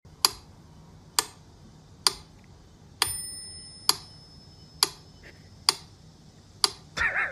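Steady clock-like ticking, about one tick a second. A bell-like tone rings out from about three seconds in. A wavering pitched sound starts just before the end.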